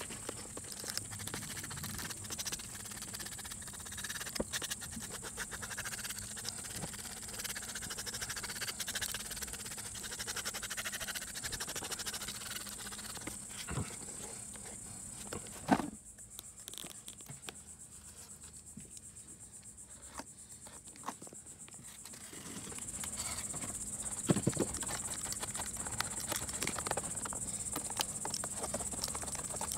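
Steady high-pitched buzzing of an outdoor insect chorus, which drops away for several seconds past the middle and comes back, with scattered small clicks and a sharper knock of hand work on the bumper repair.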